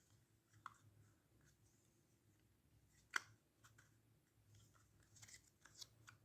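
Faint clicks and handling noise as a small LED lamp's parts are fitted together by hand, with one sharper click about three seconds in, over a steady low hum.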